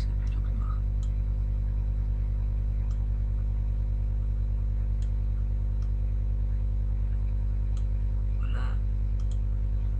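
Steady electrical mains hum with a stack of even overtones, with a few faint clicks scattered through it.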